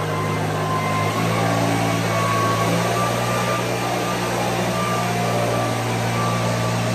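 An engine running steadily, its pitch stepping up slightly about a second in.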